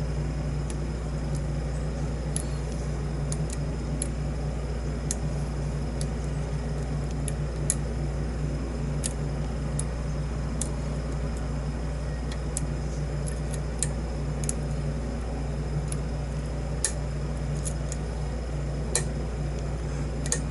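Light metallic ticks and clicks, irregular and scattered, from a lock pick and tension tool working the pins of a padlock, over a steady low hum.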